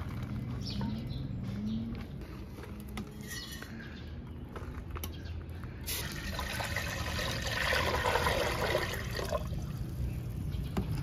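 Water poured from a stainless steel jug into a large metal cooking pot. The splashing starts about six seconds in, builds, then trails off a few seconds later.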